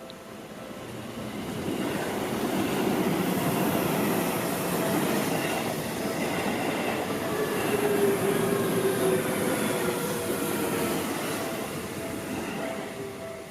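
A Seibu Ikebukuro Line electric train passes over a level crossing. Its wheel and track noise builds over the first couple of seconds, stays loud with a faint high whine, and fades near the end. A steady two-tone level-crossing warning bell keeps ringing underneath.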